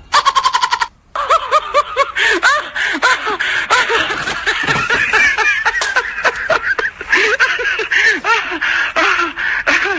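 A laugh track: many people laughing at once, in dense overlapping peals, from about a second in. It follows a brief rapid rattling sound effect with a steady tone.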